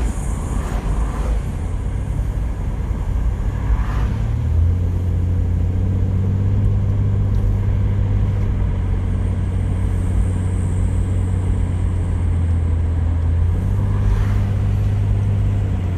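Holden VP Commodore engine and road noise while driving, a steady drone whose note climbs about four and a half seconds in and eases back near the end.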